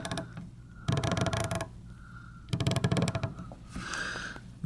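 Snap-on SHLF80A half-inch drive flex-head ratchet being worked back and forth in reverse, its fine-tooth mechanism clicking rapidly in short bursts, twice fully, with quiet gaps between. The even clicking shows the ratchet working in both directions.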